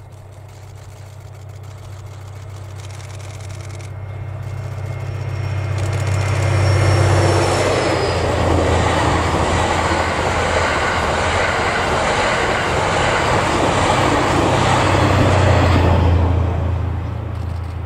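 JR East E001-series Shiki-shima sleeper train going by on its own diesel engines. The engine drone grows louder over about six seconds as the train approaches. It then holds loud, with the rumble of wheels on rail, while the carriages pass.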